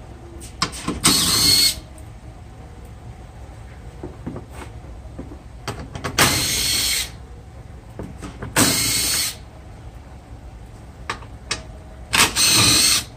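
Cordless drill run in four short bursts, each under a second, spinning out the fasteners that hold the car's plastic lower engine cover, with small clicks between bursts.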